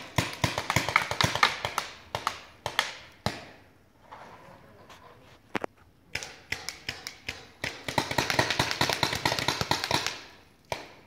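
Paintball markers firing: sharp pops in quick volleys, a lull about four seconds in, then a long dense burst of rapid fire about eight seconds in.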